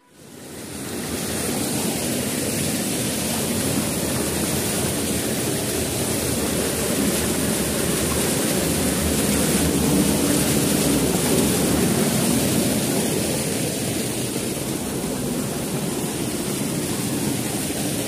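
Steady roar of a waterfall, rushing water, fading in over the first second or two.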